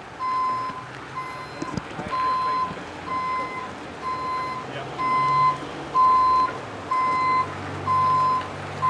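Back-up alarm of a Mack roll-off dumpster truck beeping about once a second as the truck reverses, with its diesel engine running low underneath.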